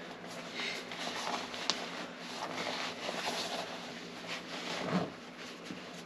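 Nylon snowmobile pants rustling and a leg zipper scraping as it is worked by hand, with a sharp click about a second and a half in.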